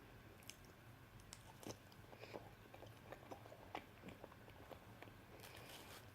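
Faint close-up chewing of soft, sticky food, peanut butter and banana: scattered wet mouth clicks, with a denser smacking cluster near the end.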